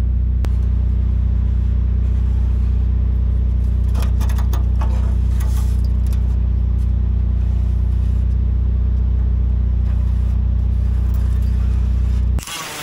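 An engine running steadily with a constant low hum, with a few short scratching strokes of a marker on sheet metal about four seconds in. Near the end the hum cuts off suddenly and a harsher hissing noise takes over.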